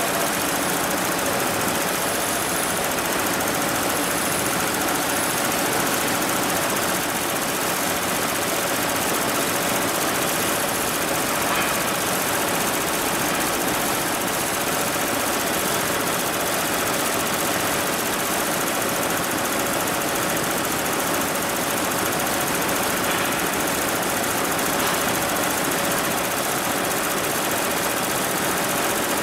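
HIGHTEX 7201 single-head, 12-needle commercial embroidery machine running steadily while stitching a design: a fast, even mechanical clatter of the needle strokes, with a faint steady hum underneath.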